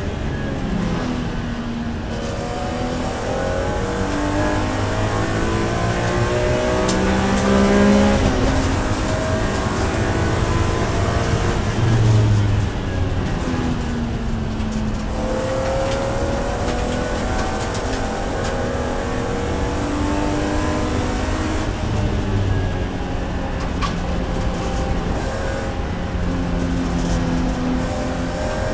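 BMW E46 M3's S54 3.2-litre straight-six racing engine heard from inside the cabin, its pitch rising and falling with throttle and gear changes. About halfway through it drops away under braking, then climbs again under full throttle.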